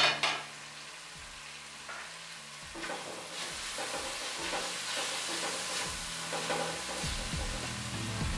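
Diced chicken sizzling in hot oil in an aluminium wok, stirred with a silicone spatula. The sizzle grows louder about three seconds in, with repeated stirring strokes through the pieces.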